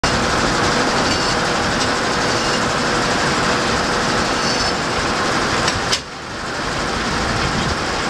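Steam-powered, belt-driven sawmill running, a steady, dense mechanical clatter with a faint hum beneath it. About six seconds in there is a sharp click, and the noise drops suddenly, then builds back up.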